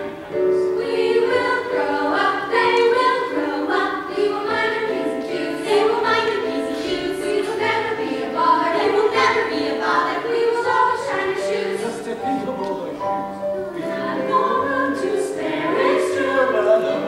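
A group of voices singing together, choir-style, in a continuous sung number.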